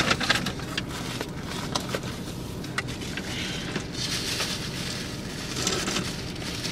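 Steady low hum inside a car cabin, with small clicks and soft rustles of napkins and takeout packaging being handled.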